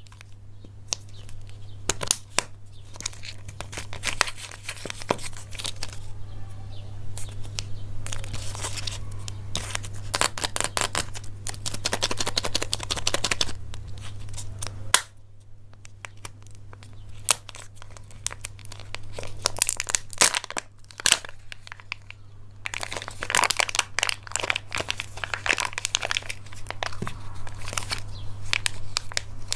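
Plastic candy and surprise-egg wrappers being crinkled and torn open in close-up, dense runs of crackling broken by short pauses, over a steady low hum.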